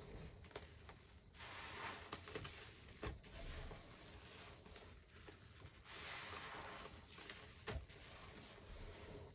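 Wet squelching and fizzing of foamy paste as a sponge is squeezed and rubbed through it by hand, faint and coming in slow swells with a few soft clicks.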